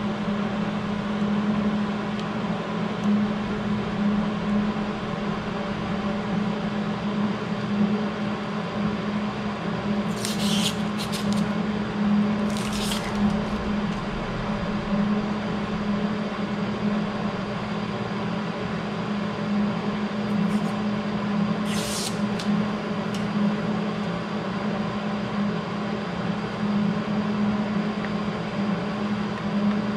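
Steady machine hum throughout, with a few brief scratchy clicks and scrapes of small plastic parts being handled: a welding-helmet lens cartridge being worked on by hand, about a third of the way in and again later.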